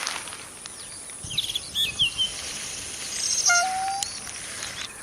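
Bird calling: a few quick chirps, then about three and a half seconds in a single harsh, buzzy call that rises slightly, over a steady high hiss.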